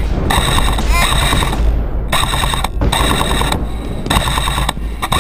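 Airsoft electric guns firing full-auto in a series of short bursts, about six, each a fast rattle of evenly spaced shots.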